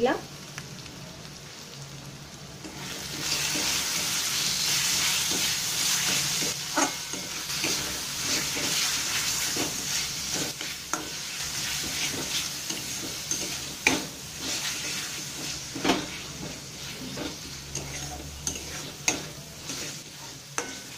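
Onion-spice masala with fresh tomato pieces frying in hot mustard oil in a kadai, stirred with a spatula. A steady sizzle swells up sharply about three seconds in and eases off gradually, while the spatula scrapes and knocks against the pan every second or two.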